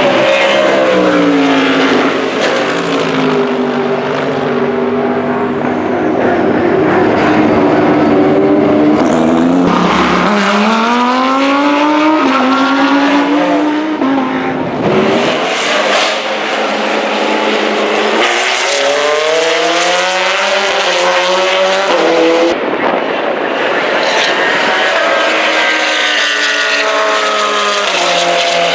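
Corvette C8.R race car's flat-plane-crank V8 at high revs, accelerating hard through the gears. Its pitch climbs in long sweeps and drops suddenly at an upshift, with a falling-pitch stretch near the start as the car slows.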